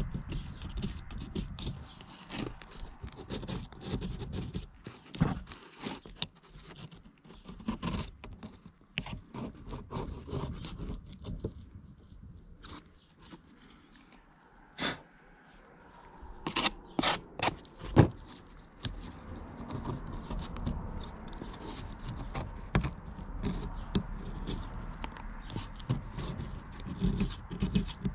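Razor blade scraping an old gasket, stuck down with adhesive, off the metal face of an outboard fuel lift pump housing, in repeated short irregular strokes. The scraping pauses about halfway through, where a few sharp clicks sound, the loudest a little later, before it resumes.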